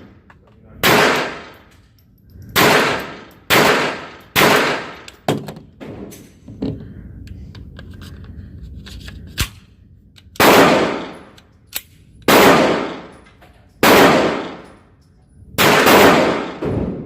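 Gunshots fired one at a time at uneven intervals, about ten in all, each ringing off briefly, with a pause of a few seconds about halfway through.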